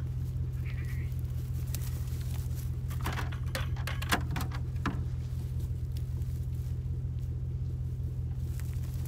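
Goats bleating a few short times, about three to five seconds in, over a steady low rumble.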